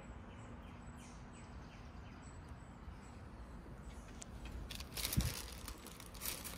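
Quiet outdoor background with faint bird chirps, then crinkling of a paper sub-sandwich wrapper being picked up and handled, briefly about five seconds in and again near the end.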